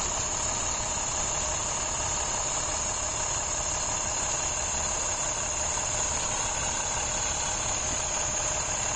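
School bus diesel engine running steadily as the bus pulls up and stops, with a steady high insect chorus throughout.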